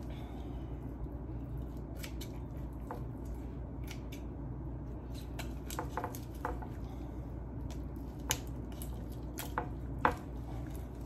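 Scissors cutting through a raw chicken's backbone: scattered sharp snips and crunches of bone, the loudest about eight and ten seconds in.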